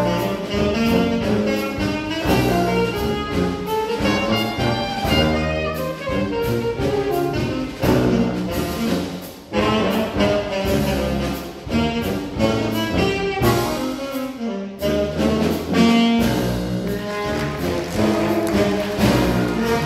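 A school jazz band playing a traditional New Orleans-style tune live, with a saxophone section, trumpets, trombone, banjo, tuba and piano. The ensemble briefly drops out twice, a little before halfway and about three-quarters through, then comes back in.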